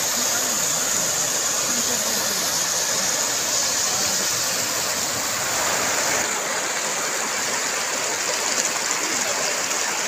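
Shallow, rocky river running in rapids, water rushing steadily over stones and boulders. The high hiss drops a little about six seconds in.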